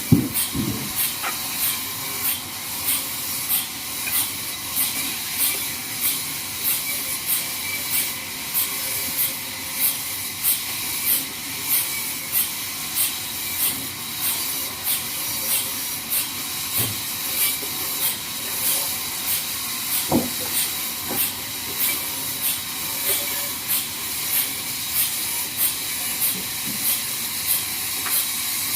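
Sawmill band saw cutting a log: a steady hiss with a regular pulse a little over once a second, and a brief knock at the very start.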